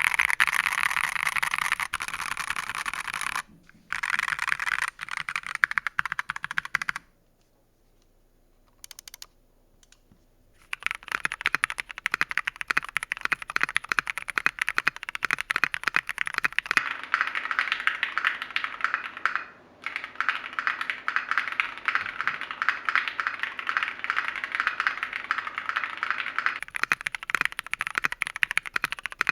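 Fast typing on an Ajazz AC081 mechanical keyboard with lubed Gateron Yellow linear switches and POM keycaps: a dense run of key clacks. It stops for about three seconds roughly a quarter of the way in, apart from a brief flurry, then resumes.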